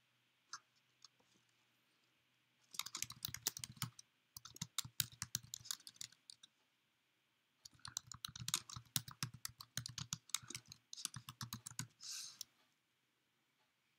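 Typing on a computer keyboard: a couple of lone key clicks, then rapid runs of keystrokes starting about three seconds in, with a short pause near the middle.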